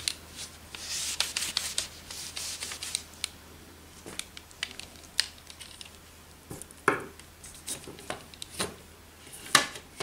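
A cloth rubbing over the plastic housing of an HP 19A (CF219A) imaging drum unit, with scattered small plastic clicks as it is handled. Two louder knocks come about seven seconds in and near the end.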